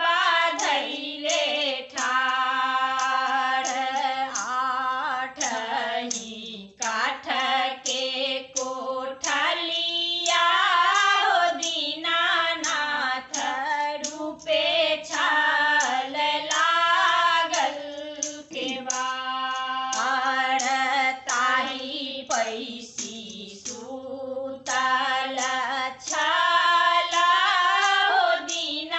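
Women's voices singing a Maithili Chhath devotional folk song together, in long held, gliding phrases with short breaks for breath between lines.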